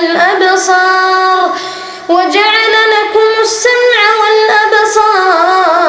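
A reciter's voice chanting Quran recitation in long, melodic drawn-out notes with ornamented pitch turns, briefly fading about two seconds in before the next phrase.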